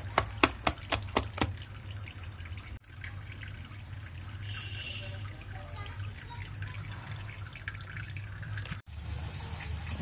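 A hand beating thick vada batter in a steel bowl: a quick run of about seven wet slaps in the first second and a half, then quieter wet handling of the batter and water, over a steady low hum.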